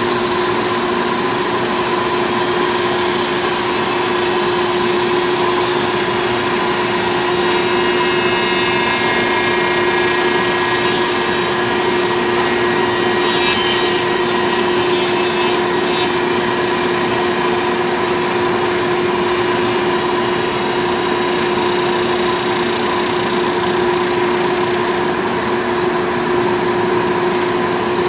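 Log-milling machine cutting into a log: a steady motor whine over the continuous noise of the cut, easing slightly near the end.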